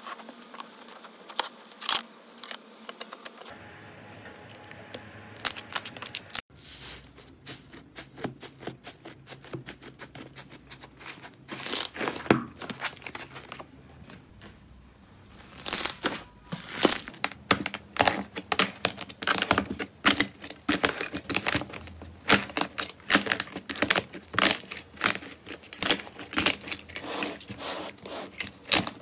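Hands squishing and poking slime, making dense runs of small crackling pops and clicks with a few louder snaps. The texture changes twice as one slime gives way to another. The crackling is thickest near the end, where fingers break up a cracked clay-like crust over the slime.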